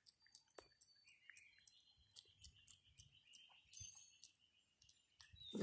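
Faint scattered clicking, then near the end a Java macaque lets out a big burp that rises sharply.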